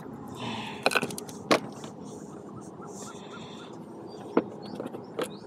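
Strong wind buffeting the microphone, with a few sharp knocks and clicks of something being handled, about a second in, at one and a half seconds, and twice near the end.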